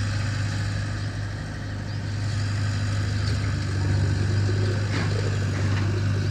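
JCB backhoe loader's diesel engine running steadily with a deep, even hum, a little louder in the second half.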